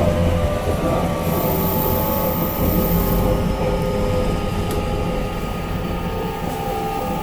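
Interior running sound of a JR Kyushu 813 series electric train, heard in a motor car: wheel and track rumble with the steady whine of the traction motors and inverter. Several whine tones slide slowly down in the second half and the sound eases slightly toward the end, as the train slows for a station. A couple of faint clicks come about two-thirds of the way through.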